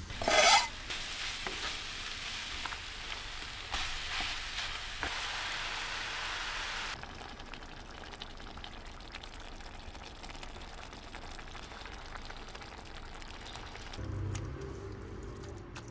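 Bolognese mince and chopped vegetables sizzling in a frying pan on a gas hob, stirred with a wooden spoon. A short loud noise comes just after the start, and the sizzle gets softer about seven seconds in. A brief low hum comes near the end.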